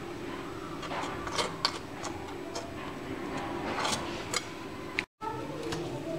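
Butter knife spreading ketchup on crisp toast on a china plate: soft scrapes and scattered light ticks of the blade, over a steady low background hum. The sound drops out for an instant about five seconds in.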